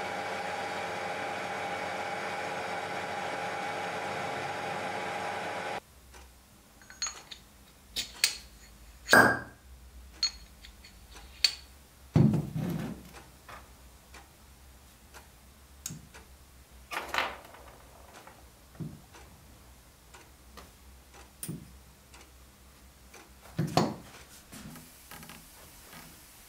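Metal lathe running steadily while turning down a steel shaft, cutting off abruptly about six seconds in. Then scattered clicks and knocks of small steel parts being handled and set down on a wooden workbench, with two louder knocks about 9 and 12 seconds in.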